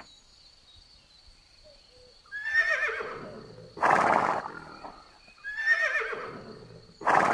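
Horse whinnying twice, each quavering call followed about a second and a half later by a loud, rough burst of breath.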